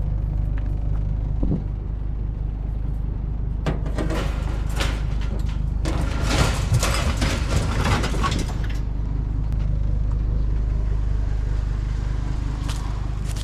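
Truck engine idling with a steady low rumble. From about four to nine seconds in, there is a run of metal clattering and rattling as scrap metal grates are handled, then a couple of sharp clicks near the end.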